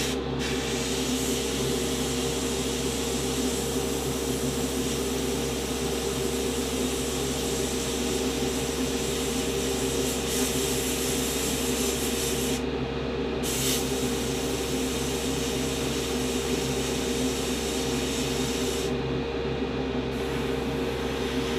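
Gravity-feed airbrush spraying paint in a steady hiss, with the air cut off briefly about 13 seconds in and again around 19 seconds. A steady motor hum runs underneath.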